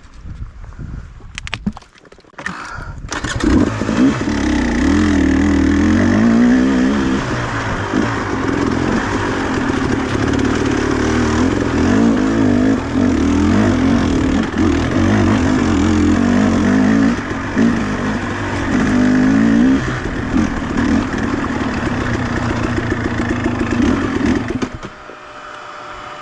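Small two-stroke engine starting up about three seconds in and running loud at high revs, its pitch rising and falling, then dropping back to a quieter level near the end.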